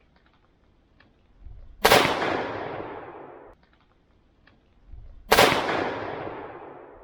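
Two rifle shots from a .350 Legend rifle, about three and a half seconds apart, each a sharp crack followed by a long rolling echo that dies away.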